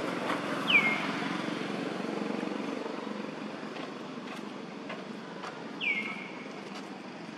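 Two short, high animal calls, each dropping sharply in pitch and then holding briefly, the first about a second in and the second near the end. Under them runs a steady low rumble like a distant engine, fading slowly.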